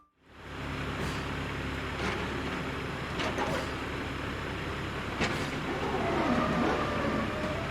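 Heavy machine's diesel engine running steadily, with several sharp clanks of metal and a faint wavering whine near the end.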